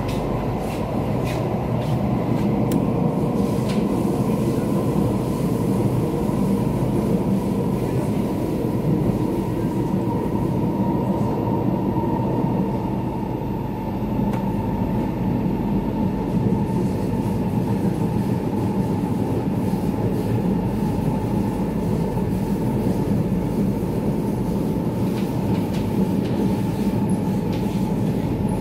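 Running noise inside a Kawasaki–Nippon Sharyo C751B metro train car at speed: a steady rumble of wheels on rail with a faint whine held at one pitch. Scattered clicks come in the first few seconds and again near the end.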